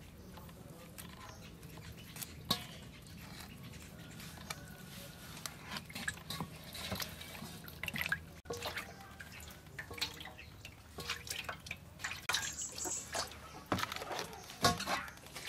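Wet dripping and small squelching clicks as hands rub and peel the scalded outer skin off a softshell turtle, coming irregularly and busier in the second half.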